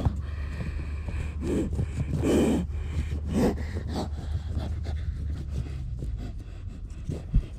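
A man breathing hard, with a few loud panting breaths in the first half, over a steady low rumble. A sharp knock comes near the end.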